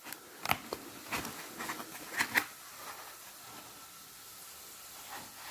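Light handling noises: a few soft clicks and rustles over the first couple of seconds, then only faint room hiss.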